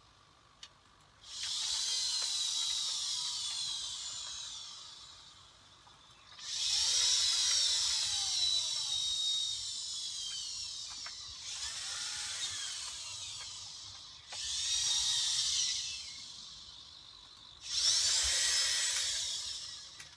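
Servo motors in an InMoov humanoid robot's arms whining as the arms move through programmed poses. There are five separate runs of whine, each a few seconds long, gliding up and down in pitch, with a small click just before the first.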